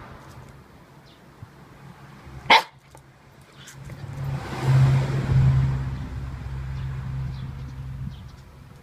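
A Shiba Inu gives one sharp bark about two and a half seconds in. Then a low, steady mechanical hum swells up and slowly fades over the next few seconds.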